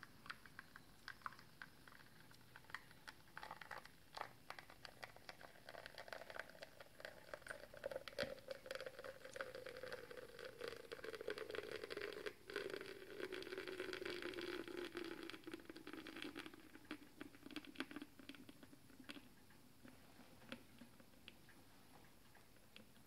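A thick stream of espresso pouring from the bottomless portafilter of a lever espresso machine, with a soft patter of small crackles and drips. Through the middle a faint tone slowly falls in pitch.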